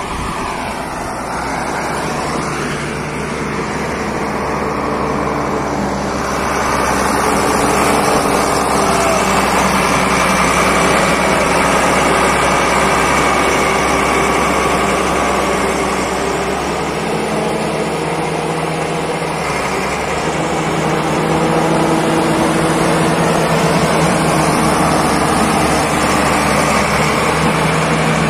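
Crawler bulldozer's diesel engine running steadily under load as its blade pushes through deep snow, getting louder about seven seconds in.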